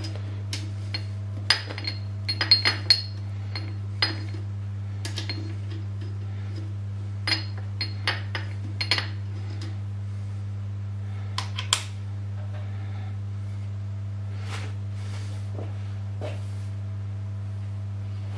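Light metallic clinks and taps as small steel parts are handled against a steel plate bolted to a milling machine vise, in irregular clusters with a quiet stretch after about twelve seconds. A steady low hum runs underneath.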